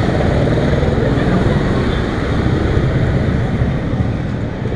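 Street traffic, mainly motorcycle and car engines running on the road, a steady rumble that eases slightly near the end.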